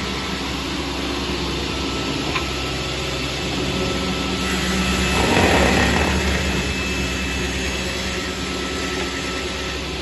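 Multi-blade rip saw (multiple slitting machine) running with a steady hum, with a louder rush of cutting noise for about two seconds in the middle as wood passes through the blades.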